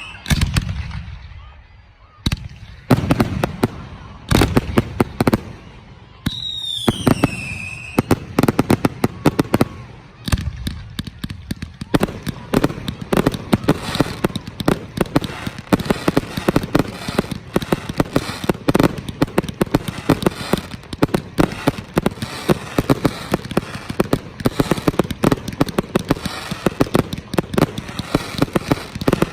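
Fireworks display: several loud booming bursts, and a whistle falling in pitch about seven seconds in. From about eight seconds on comes a dense, continuous crackling of many rapid small bangs.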